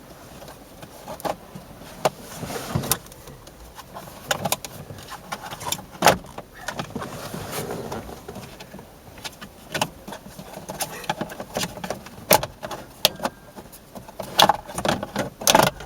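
Scattered, irregular clicks, knocks and rattles of hand tools and plastic interior trim as the 7mm screws come out and the lower steering column cover is worked off.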